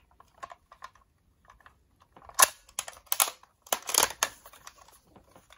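Handling noise from two toy Power Morpher replicas, one die-cast metal and one plastic, turned over in the hands: a few faint clicks, then a run of sharp clicks and clacks from about two to four seconds in, and another near the end.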